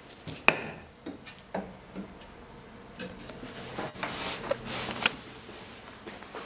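Handling noises at a textile screen-printing press: a sharp click about half a second in, scattered light knocks, and a rubbing swish of about a second around four seconds in, as the printed shirt and screen frame are handled.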